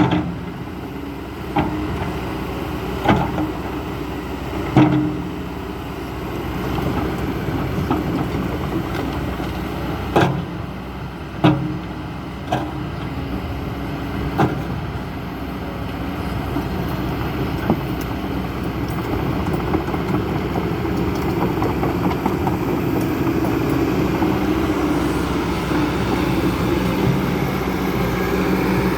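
Kobelco SK200-10 hydraulic excavator's diesel engine running steadily, growing a little louder in the second half. Sharp knocks come every second or few in the first half.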